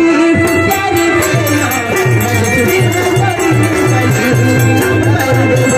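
Live Adivasi folk stage music: drums settle into a steady beat about two seconds in, with a bright rattle shaken in time and held melody notes above.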